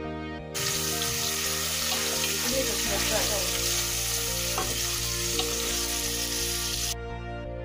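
Sliced onions and green peppers sizzling as they fry in a pot, stirred with a wooden spoon that scrapes a few times in the middle. The sizzle starts suddenly about half a second in and cuts off suddenly near the end, over background music.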